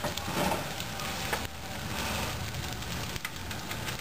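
A Ford F-150 pickup truck burning: the fire crackles and hisses steadily, with a few sharp pops scattered through it.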